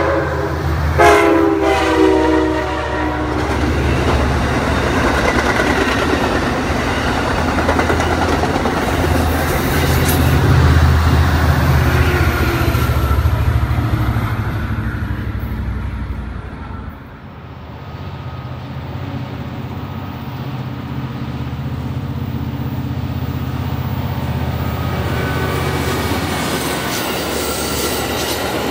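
Amtrak Surfliner passenger train going by: a multi-note train horn blows at the start and cuts off about two seconds in, then the diesel locomotive's steady low rumble with the clatter of wheels over the rails. The sound dips briefly a little past halfway, then a second steady rumble carries on.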